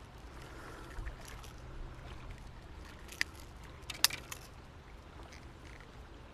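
Faint handling sounds of a hook and lure being worked free of a largemouth bass's mouth by hand, with two sharp clicks a little after halfway, over a low steady rumble.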